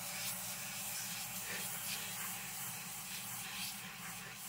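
Aerosol freeze spray hissing as it is sprayed onto the amplifier's Class A output blocks, chilling them to find the part that makes the noise. A steady low hum runs underneath.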